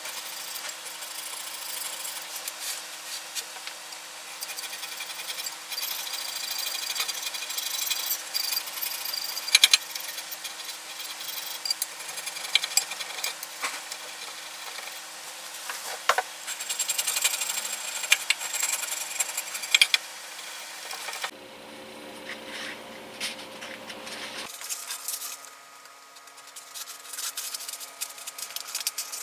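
Restoration work on the parts of an old electric planer: scraping and rubbing with scattered sharp clicks and knocks. About three quarters through, it cuts to a few seconds of steady hum, then back to rubbing.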